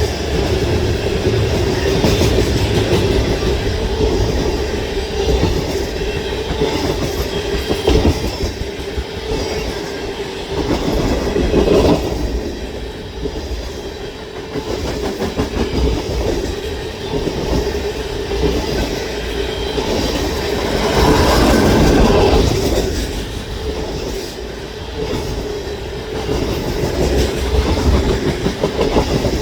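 Freight cars of a long CN manifest train rolling past at a crossing: steady rumble with the clickety-clack of wheels over rail joints, swelling louder about two thirds of the way through.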